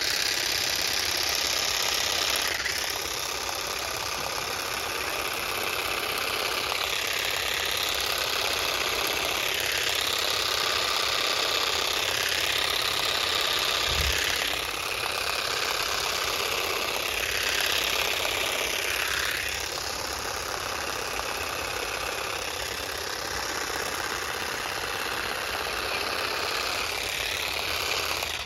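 Parkside PGSA 4 A2 cordless grass shears running, the electric motor driving the reciprocating cutting blade through lawn grass. It starts abruptly, falls and rises in pitch several times as the blade meets the grass, and cuts off at the end.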